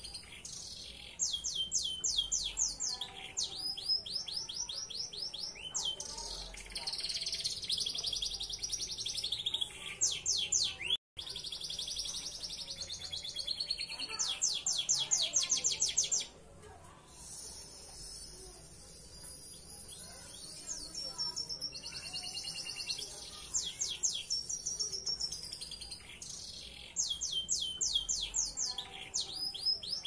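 Belgian Bossu canary singing a long song of fast trills and rolling, warbling phrases. The sound cuts out for a moment about a third of the way through, and the song is quieter and sparser for a few seconds just past the middle.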